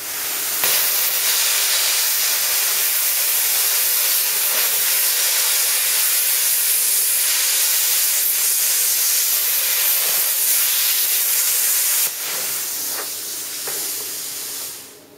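Plasma cutter torch arc hissing steadily as it cuts into a stainless steel pipe fitting, spraying sparks. About twelve seconds in it drops to a softer hiss as the arc goes out, then stops near the end.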